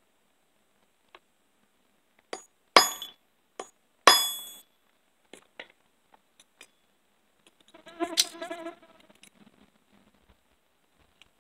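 Ball-peen hammer striking a punch on chainsaw chain rivets, peening a tie strap closed: a few light taps and two sharp, ringing steel strikes about three and four seconds in, then lighter ticks. A short buzz follows about eight seconds in.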